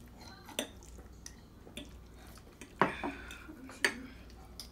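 Forks clinking and scraping against glass plates of spaghetti: a few scattered sharp clinks, the loudest about three seconds in.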